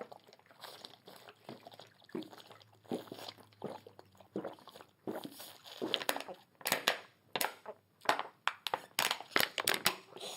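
Irregular crinkling and crunching handling noises, a run of short crackles that grows busier and louder from about six seconds in.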